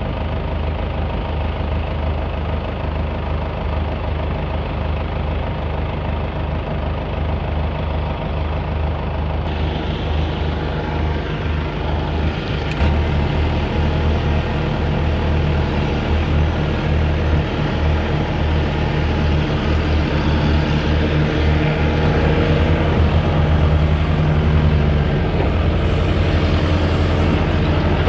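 Excavator's diesel engine running steadily under work, a low engine drone that grows somewhat louder in the second half.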